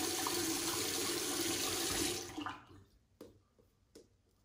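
Bathroom tap running steadily as water is added to the shaving brush and lather, shut off a little over two seconds in. Then a few faint, short strokes of the shaving brush.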